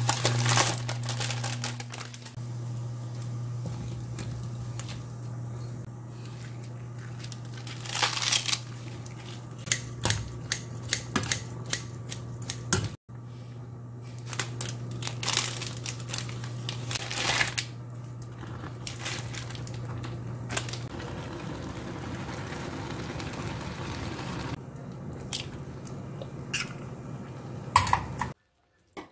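Cooking sounds at a glass-top stove: hot water poured into a frying pan, then the crinkling and tearing of a ramen seasoning packet among scattered clicks and knocks, over a steady low hum. The sound cuts off abruptly near the end.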